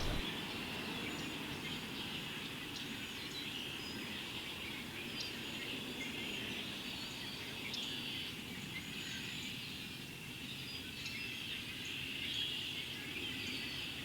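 A large mixed flock of red-winged blackbirds and cedar waxwings singing and calling together: a steady, dense chorus of chatter with many short, thin high calls mixed in.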